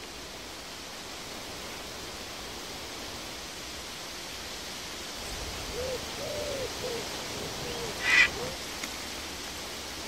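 Outdoor ambience: a steady hiss, with a string of short, low animal calls from about halfway in and one brief, louder, sharper call near the end.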